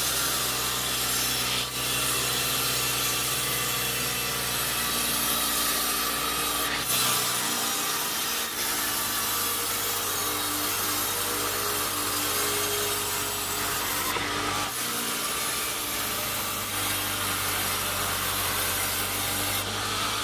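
Sawmill saw cutting steadily through a log, with a continuous loud rasp of blade on wood over the steady hum of the mill's machinery. The machine's low tone changes twice, once about a third of the way in and again about three-quarters of the way through.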